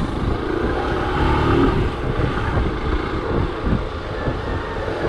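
Motorcycle running while being ridden through traffic, with an uneven low rumble of wind on the microphone.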